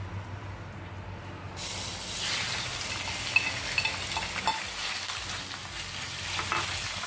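Seasoned pork belly slices going into hot cooking oil in a pan: a loud sizzle starts suddenly about a second and a half in and keeps going, with crackling spits and pops.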